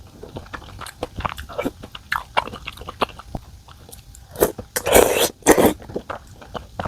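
Close-miked eating sounds: a person chewing and biting food in many small clicks, with a few louder, longer mouth noises around the middle and near the end.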